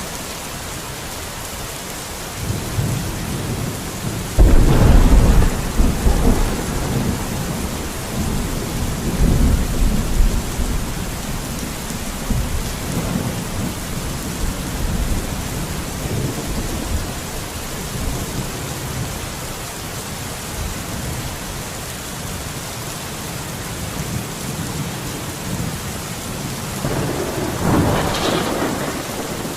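Steady rain falling. About four seconds in, a loud, low rumble of thunder starts suddenly and rolls on in weakening swells for several seconds. A shorter swell of rumbling noise comes near the end.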